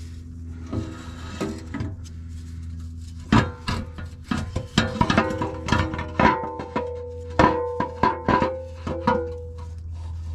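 Background music of plucked guitar notes, starting about three seconds in, over a steady low hum.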